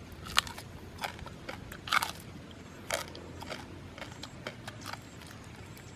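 Cooked quail being torn apart by hand and eaten: an irregular scatter of sharp crackles and crunches from the crisp skin and small bones. The loudest cracks come about half a second and two seconds in.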